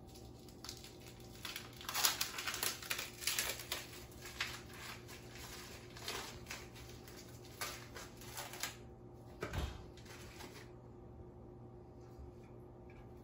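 Plastic wrap and tray of a meat package crinkling and crackling in irregular bursts as it is opened by hand, with a dull thump near the end.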